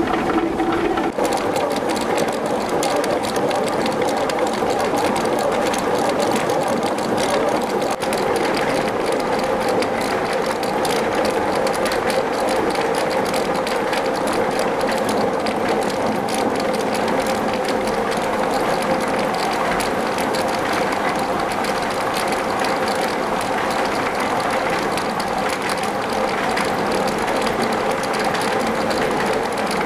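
Horizontal water mill running: a steady, rapid mechanical clatter over a constant hum as the millstone turns and grinds maize.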